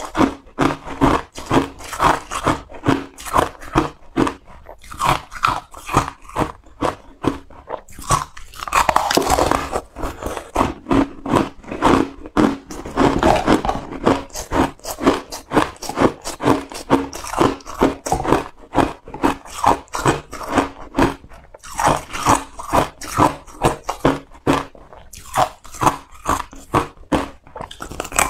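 Close-up crunching of frozen crushed ice being bitten and chewed, several sharp crunches a second, with two longer, denser spells of crunching midway.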